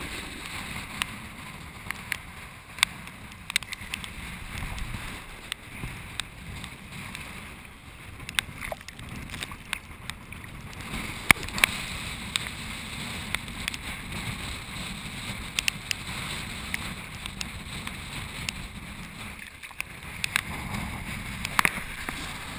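Choppy hurricane-swell seawater sloshing and slapping against a waterproof action-camera housing held at the surface, with frequent sharp splash clicks over a steady wash of water and wind.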